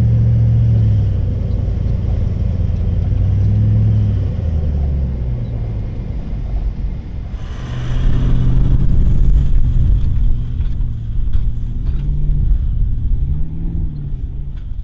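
4WD vehicle's engine running as it drives along a track, its pitch shifting and bending with the revs. A rush of noise comes in about halfway through and lasts a couple of seconds.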